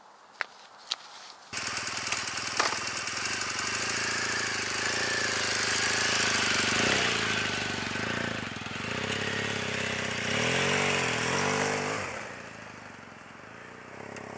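Motorcycle engine that comes in suddenly about a second and a half in, then runs with its pitch rising and falling as it is revved, settling lower near the end.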